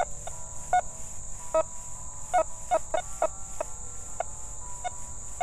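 Nokta FORS Core metal detector giving short, broken beeps at irregular intervals as its coil sweeps over a rusty nail. There is no solid repeating tone: this is the nail's iron response alone, with the dime that lay beneath it removed.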